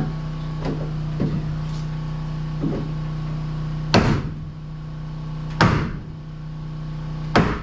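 Knocks and three loud thumps, about a second and a half apart in the second half, as a tight-fitting piece is forced into place during the build, over a steady low hum.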